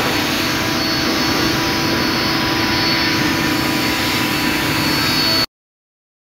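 Woodworking machinery running steadily: an even rush of air with a constant low hum and a high whine, cutting off abruptly near the end.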